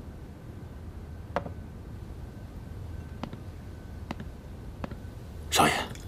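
Light clinks and taps of a drinking glass and bottle being handled on a wooden sideboard, the sharpest about a second and a half in, over a low steady hum. Shortly before the end comes a brief, loud rush of noise.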